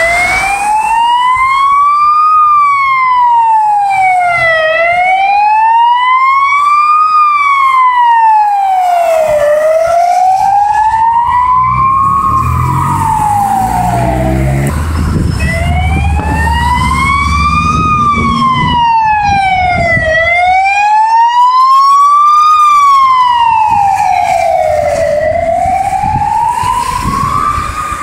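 Emergency vehicle siren sounding a slow wail, rising and falling about every five seconds. Halfway through, a vehicle passes close with engine and tyre noise, and the siren briefly breaks off before resuming.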